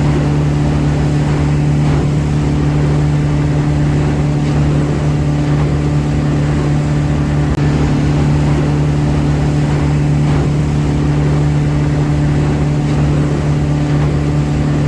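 A boat's motor running steadily at constant speed, a loud even drone with a strong low hum over rushing water and wind noise.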